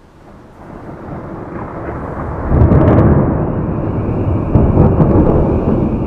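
Thunder rolling: a deep rumble swells from the start into a loud peak about two and a half seconds in, surges again near five seconds, then rumbles on as it slowly fades.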